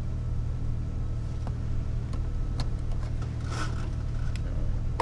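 Jeep Wrangler TJ engine running low and steady at trail-crawling speed, with a short hissing noise about three and a half seconds in.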